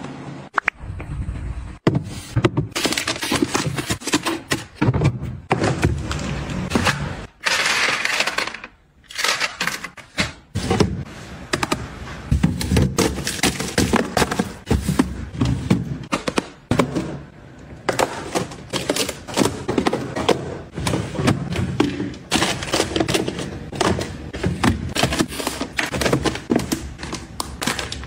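Plastic jelly pouches and cups dropping into a plastic fridge drawer, a busy clatter of small thuds and clicks with packaging crinkling.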